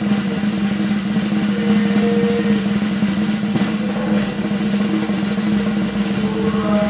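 Rendered fat on a hot roasting tray of beef marrow bones, fresh from the oven, sizzling and crackling in a fast, continuous patter over a steady low hum.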